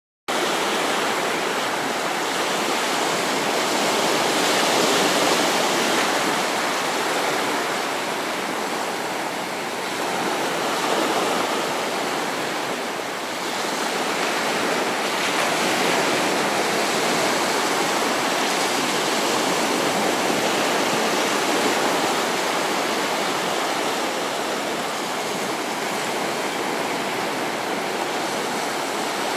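Sea surf washing steadily on the shore, a continuous rushing noise that swells and eases slowly.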